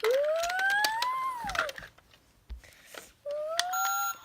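Electronic toy sound effects: a whistle-like tone that rises and then falls, a second rising tone, then a run of repeating beeps near the end, over light clicks of plastic toys being handled.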